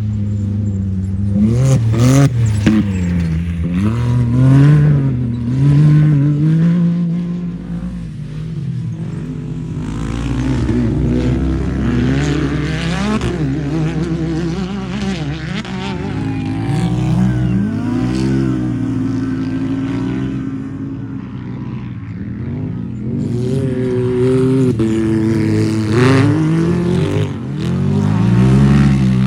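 A racing UTV's engine revving hard, its pitch rising and falling over and over as it accelerates and backs off through the course.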